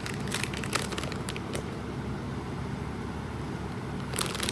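A steady low background hum, with a few light clicks and crinkles of packaging being handled in the first second or so and again near the end.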